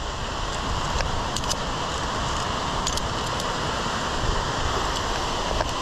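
Via ferrata lanyard carabiners clicking and jingling lightly against the steel safety cable a few times, over a steady rushing noise.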